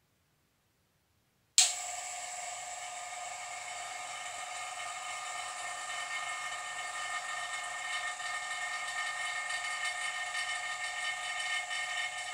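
Vacuum pump starting suddenly about a second and a half in, then running steadily with a hiss and a whine.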